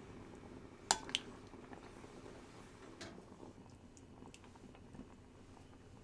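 Wooden spoon stirring thick rice porridge in an enamelled cast-iron pot, with soft wet squishing and two sharp knocks of the spoon against the pot about a second in, then a few fainter ticks.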